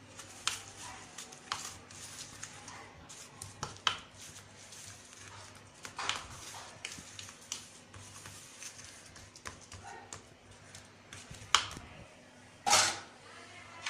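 A utensil tapping and scraping against a plate as a sticky date and nut mixture is pressed and spread into it, in irregular light knocks with a louder scrape near the end. A low steady hum runs underneath.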